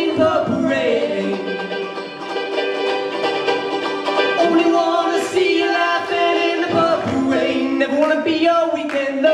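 Two ukuleles strummed together with male singing over them, a live acoustic duo performance.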